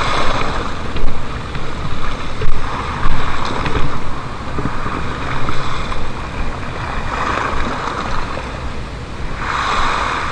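Small waves washing and splashing against a concrete seawall, swelling and easing every few seconds, with wind buffeting the microphone.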